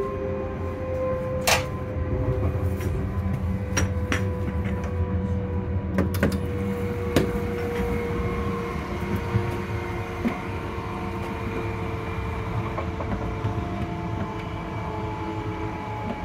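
Class 385 electric multiple unit's traction motors whining inside the carriage: a steady whine that sinks slowly in pitch over the low rumble of the running train. Several sharp knocks and rattles come in the first half.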